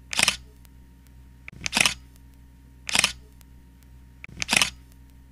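Camera shutter sound clicking four times at a steady pace, about one and a half seconds apart, each a quick sharp snap.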